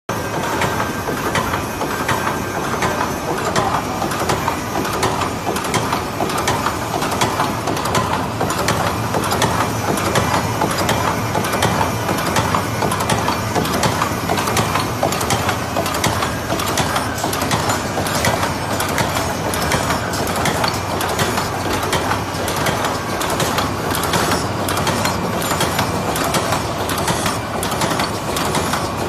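Automatic paper-lid forming and die-cutting machine running, a steady mechanical clatter of rapid, repeated clicks as the press cycles and lids feed through.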